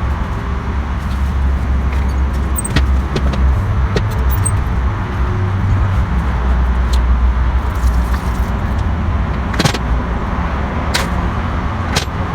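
A steady low rumble throughout, with scattered short clicks and light clinks of parts being handled.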